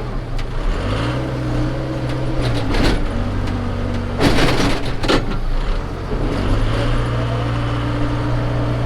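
Case 580SK backhoe's four-cylinder diesel engine working under load while pushing snow, its revs rising about a second in, dropping back near three seconds and rising again after six seconds. Loud bursts of scraping noise come twice midway.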